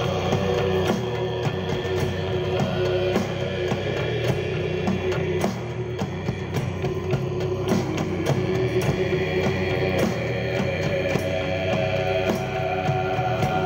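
Sludge metal music: slow, heavy guitar with a drum kit, its drum hits landing at short, regular intervals.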